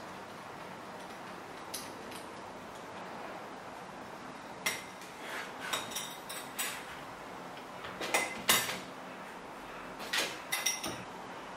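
Metal tools and small parts clinking and clattering on a workbench: a run of sharp knocks with a brief metallic ring, starting about five seconds in and clustered in two bursts near the end.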